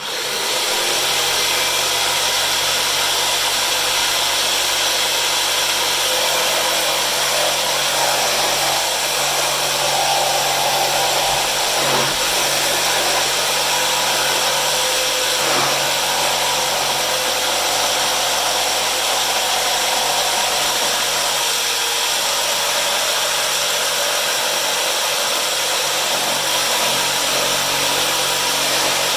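Electric power tool running steadily as it cuts a timber strip back along a scored line. The motor noise starts abruptly and holds a steady pitch and level throughout.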